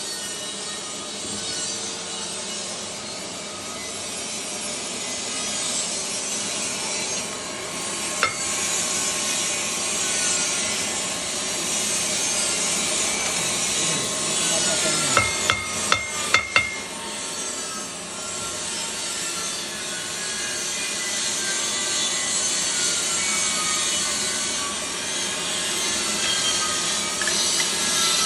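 Steady rasping, hissing workshop noise, with a sharp metallic click about a third of the way in and a quick run of four or five sharp clicks near the middle.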